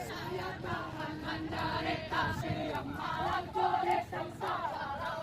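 Several voices singing a song together, with held, melodic notes.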